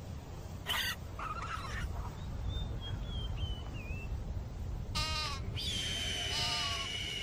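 Chamois calling: short bleats about a second in and again from about five seconds, a thin falling whistle in between, and a long high whistling note near the end, over a steady low rumble.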